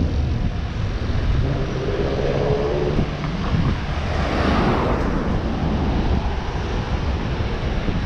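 Street traffic: cars driving past on a multi-lane city street over a steady low rumble, with one car passing close about four seconds in.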